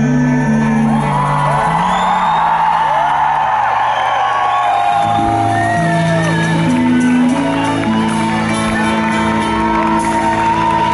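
A live pop-rock band of acoustic and electric guitars and drums holding long chords at the close of a song, while the audience sings along and whoops.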